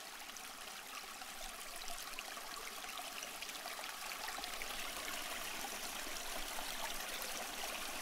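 A campfire crackling: a steady soft rush full of tiny pops and snaps, slowly getting a little louder.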